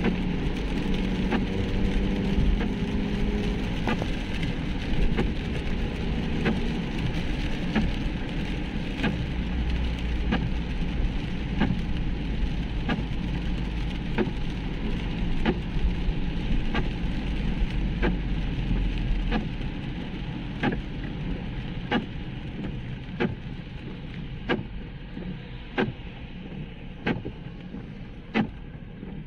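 Inside a car's cabin in the rain: wet-road tyre and engine rumble with rain on the car, and the windscreen wipers sweeping with a sharp tick about every 1.2 seconds. About two-thirds of the way through the rumble falls away as the car slows to a stop in traffic, leaving the wiper ticks and rain.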